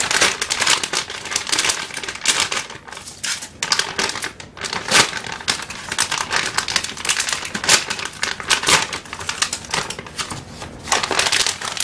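Plastic bag of wall putty crinkling and rustling as it is handled and opened, a dense run of irregular crackles that swells louder several times.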